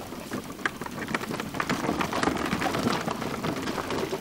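Wheels of a camera rig and a bicycle rolling over a gritty dirt track while crew push the rig on foot: a dense, irregular crackle of grit and footsteps that grows louder over the first couple of seconds, then holds.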